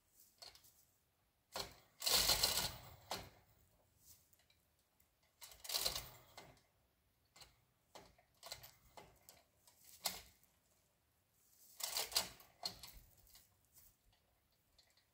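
A 2-ton hand chain fall being hauled by hand, its chain rattling and ratchet clicking in several spurts, the loudest about two seconds in and others near six and twelve seconds, with light clicks in between.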